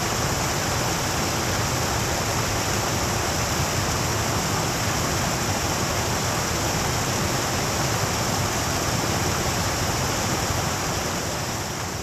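Water cascading over the walls of fountains and splashing into their basins: a steady rushing that fades out near the end.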